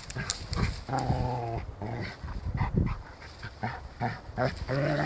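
A dog vocalizing: two drawn-out low cries, one about a second in and one near the end, amid scattered clicks and rustling.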